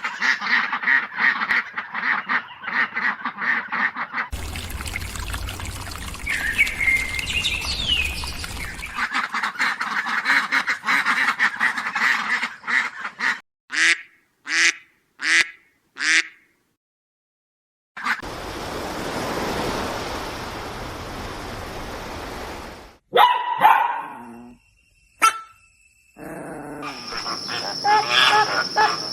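A string of short animal-sound clips, one after another. It opens with a fast run of repeated calls, then four separate calls, then a brief silence, a noisy stretch and more calls.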